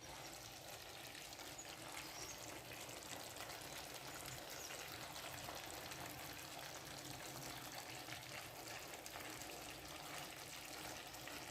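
Faint, steady hiss with fine crackles from food being cooked or prepared.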